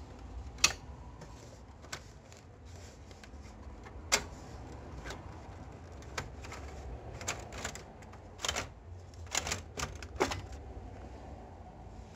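Hard plastic clicks and clacks as the toner cartridge of an HP LaserJet P1102 laser printer is gripped and pulled out of its bay. The knocks come irregularly: a few sharp ones near the start and about four seconds in, then a quicker cluster in the second half.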